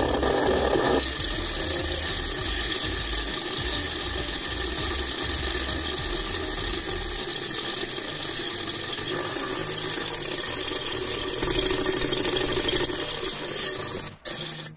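Small single-cylinder hot-air Stirling engine model running steadily on an alcohol burner: a fast, even mechanical chatter from the piston, flywheel and belt drive, which changes slightly at splice points and drops out briefly near the end.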